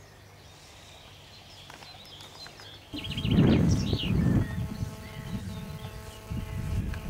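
Open-air ambience with faint bird chirps. About three seconds in it turns suddenly louder, with a gusty low rumble of wind on the microphone and a steady hum beneath it.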